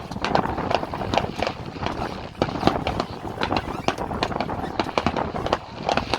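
Fireworks going off, a rapid, irregular run of pops and crackling bangs several times a second.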